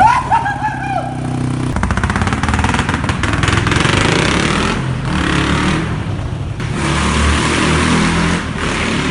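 Rieju Marathon 125's single-cylinder four-stroke engine through a Scalvini racing exhaust, running steadily at first and then revved from about two seconds in. The revs rise and fall repeatedly with a rapid, crackling staccato from the exhaust.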